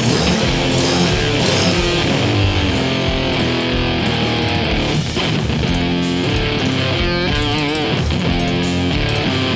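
Rock background music led by electric guitar, with held notes changing in steps and one wavering, bent note near the end.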